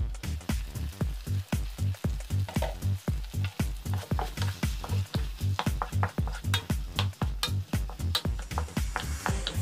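Sliced tomatoes and onions sizzling in a frying pan as they are stirred, with scraping strokes against the pan, over background music with a steady beat.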